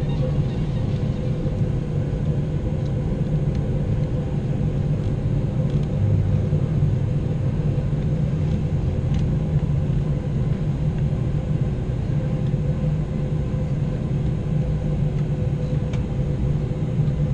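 Airliner cabin noise aboard an Airbus A321 taxiing on the runway: a steady low engine drone and rumble with a constant hum, holding level with no spool-up.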